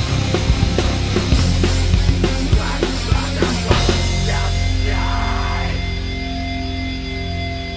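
Heavy rock band music with drums and guitar; the drum hits stop about four seconds in, leaving sustained guitar notes ringing and slowly fading.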